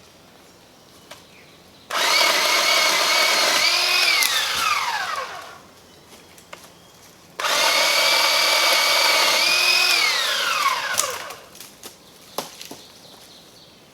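Bauer 20V cordless electric pole saw running in two bursts of a few seconds each, its motor and chain whining at a steady pitch, then falling in pitch as they spin down after each trigger release.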